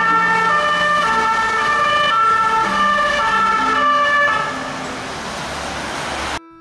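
Two-tone emergency siren on a French prison-service bus, alternating between two pitches over traffic noise. The siren fades after about four seconds, leaving street traffic noise, and the sound cuts off abruptly just before the end.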